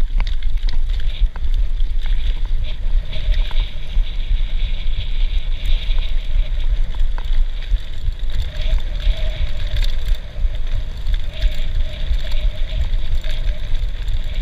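Wind buffeting the microphone of a camera on a mountain bike ridden over a rough grass and dirt track, with steady tyre rumble and small rattles and clicks from the bike over the bumps.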